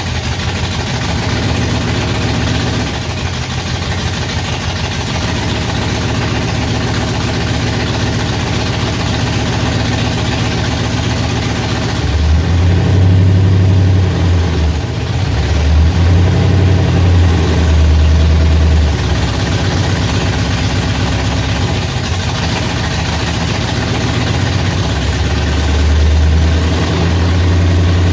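Engine of a 1995 GMC Sonoma idling on one of its first runs after sitting for a long time, with a fuel-injector problem that the owner puts down to the sitting. It runs louder and heavier from about halfway through, and again near the end.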